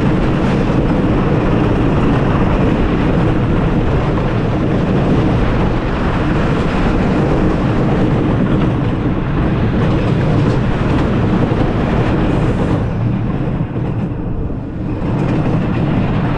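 Wooden shuttle roller coaster train rolling along its wooden track, a loud steady rumble and clatter of the wheels. The sound thins out near the end as the train runs onto the brake section.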